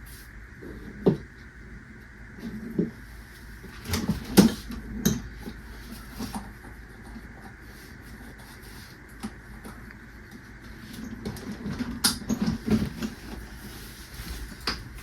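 Cabinet drawers being pulled out and set aside: scattered knocks and sliding clunks, loudest about four seconds in and again around twelve seconds, over a faint steady hum.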